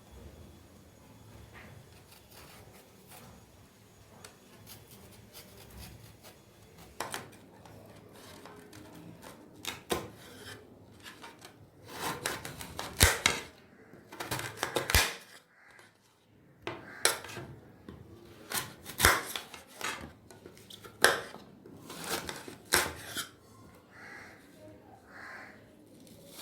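Kitchen dishes and utensils clinking and knocking together at irregular intervals. It is faint at first, then a run of sharper clinks follows from about a quarter of the way in.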